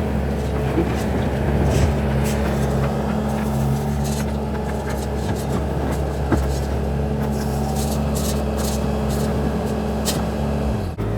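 Heavy construction equipment engine running steadily under load during concrete driveway demolition, with scattered sharp knocks and clanks of broken concrete and metal. The engine sound changes abruptly near the end.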